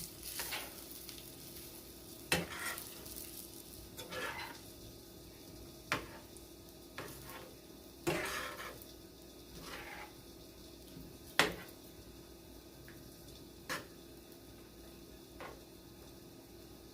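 Spoon stirring chicken in a saucepan of curry sauce: scattered sharp knocks of the spoon against the pot, about six in all, and a few longer scrapes along it.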